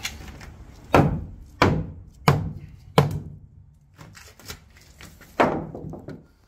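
Hammer blows on a wooden boat stringer: four strikes in steady rhythm, about two-thirds of a second apart, then one more after a pause of over two seconds.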